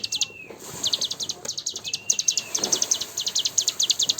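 Cigun bird singing a fast chattering trill of high, sharply falling notes, about ten a second, broken by short pauses, with a brief held whistle near the middle.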